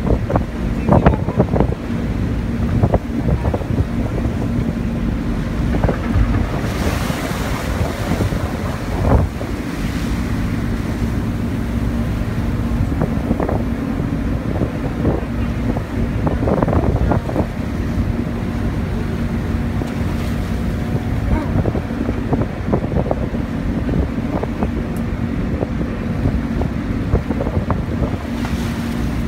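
Strong storm wind buffeting the microphone and rough seas breaking and rushing along a boat's hull, with a steady low engine hum underneath.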